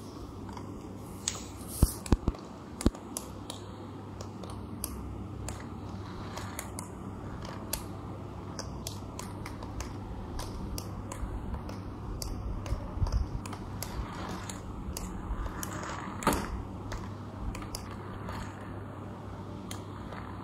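Small electric motor and plastic gears of a toy radio-controlled truck running, with scattered sharp plastic clicks, several close together about two seconds in.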